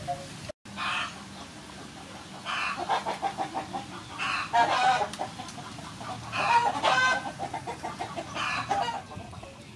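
Chickens clucking in about five short bouts of rapid clucks.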